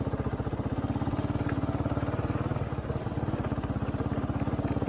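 A small engine running steadily at low speed, with a rapid, even beat.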